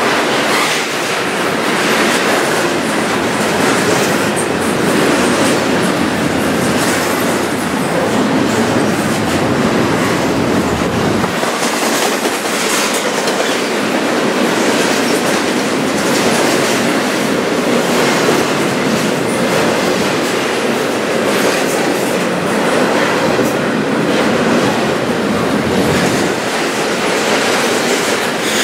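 Double-stack intermodal container cars rolling past close by: a steady rumble and rattle of steel wheels on rail, with scattered clacks as the wheels cross rail joints.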